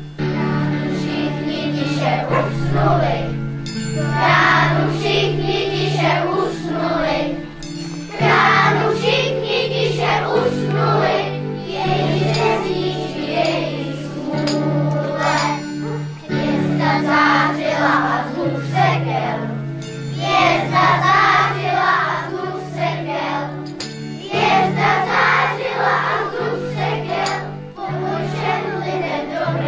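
A children's choir singing a Czech Christmas carol over an instrumental accompaniment with a steady low bass line, in phrases with short breaks between them.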